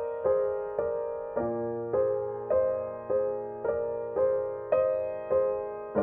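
Gentle solo piano background music: chords struck about twice a second, each ringing and fading before the next.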